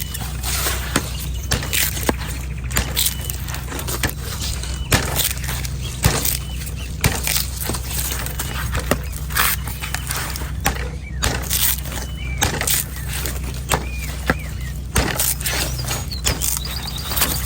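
Sharp knife chopping repeatedly into a dry, hard coconut husk: sharp strikes about one to two a second, over a steady low hum.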